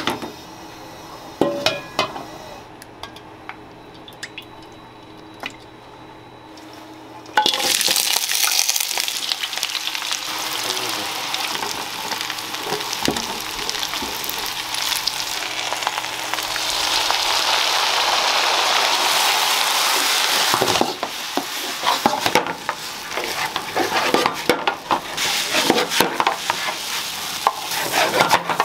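A few quiet clicks and knocks, then about seven seconds in a loud sizzle starts suddenly as fish cake strips and julienned carrots go into hot oil in a frying pan. They keep sizzling while being stirred, with a wooden spoon scraping and knocking against the pan in the last several seconds.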